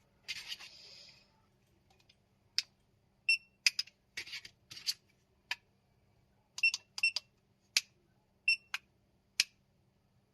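Plastic remote-control buttons clicking: about a dozen sharp clicks at irregular intervals, some with a short ringing tone, after a brief handling rustle at the start.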